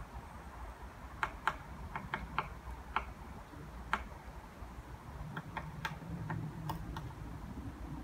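Woodpecker pecking at wood: about a dozen sharp single taps at uneven intervals, in two loose groups with a short pause around the middle.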